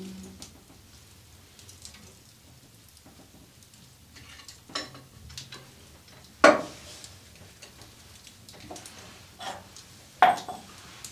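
Metal coffee pot and hearth ironware clanking as they are handled: a few sharp knocks that ring briefly, the loudest about six and a half seconds in and another near the end, with small clinks between.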